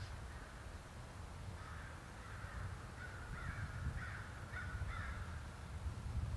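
A crow cawing in a series of harsh calls, starting about a second and a half in, over a low steady rumble.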